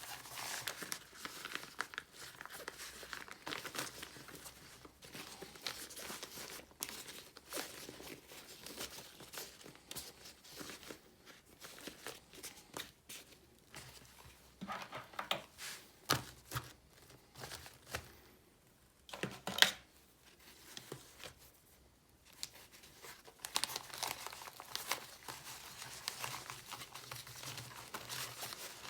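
Packaging being handled: crinkling and tearing, with many small clicks and knocks, broken by a couple of quieter pauses. One sharp click comes about twenty seconds in.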